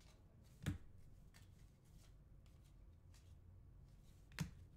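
Faint handling of Panini football trading cards as they are slid apart and flicked through by hand, with two sharp taps, one near the start and one near the end.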